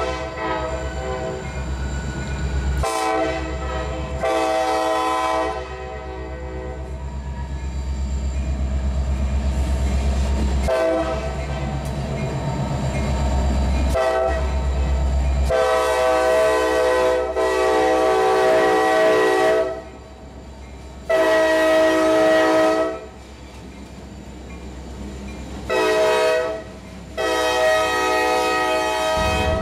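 CSX freight diesel locomotive's multi-chime air horn sounding repeated blasts, ending in the long-long-short-long grade-crossing signal, over the steady low rumble of the diesel engine and passing train.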